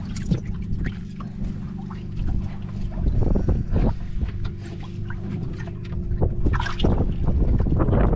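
A small boat's motor running steadily, with wind buffeting the microphone and a few knocks. The rumble grows louder in the last second or two.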